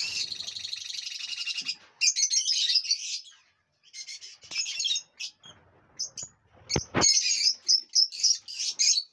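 A flock of peach-faced lovebirds chirping and chattering in bursts, a dense rapid chatter in the first two seconds. Two sharp knocks about seven seconds in.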